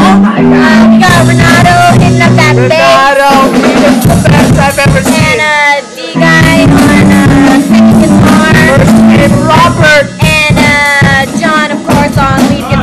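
Loud singing by voices close to the microphone: a tune of held notes, then wavering, sliding high passages, with a short break about halfway through.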